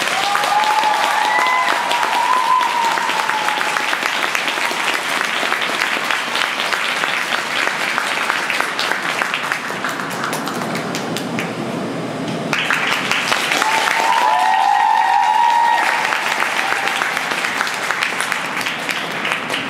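Audience applauding at the end of a figure skating routine, steady clapping throughout. High-pitched cheering voices rise over the clapping near the start and again about two-thirds of the way through.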